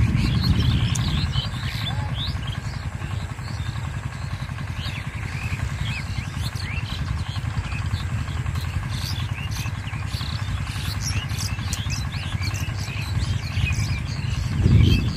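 Many small birds chirping in quick, scattered calls over a steady low rumble.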